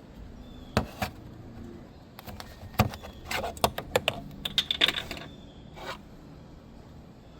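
A string of sharp clicks and clinks from small hard objects being handled, some coming in quick clusters, for about five seconds.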